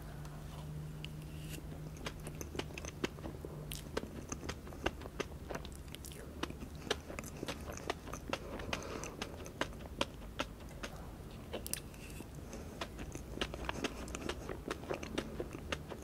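Close-miked chewing of a mouthful of Hershey's sundae pie, soft cream and chocolate cookie crust, with many quick, sharp, wet mouth clicks and smacks. A low steady hum sits under it for the first four seconds.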